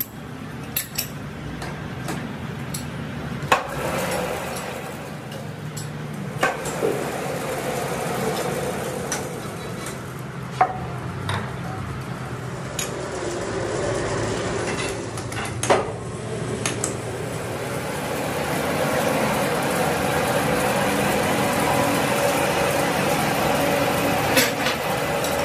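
Sharp metallic knocks and taps on steel as a truck axle tube is set and trued in a large four-jaw lathe chuck, over a steady machine hum. The hum grows louder about two-thirds of the way through as the lathe spins the part.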